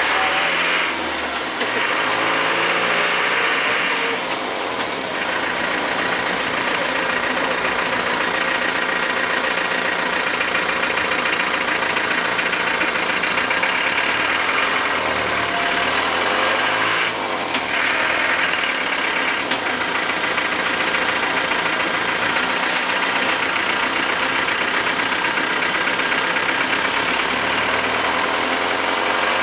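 Land Rover Defender 110 running steadily with a dense mechanical hiss over the engine note; the engine speed shifts a few times, near the start, about halfway through and near the end. Somewhere in this racket is an annoying noise that the owner is trying to capture, but it cannot be picked out.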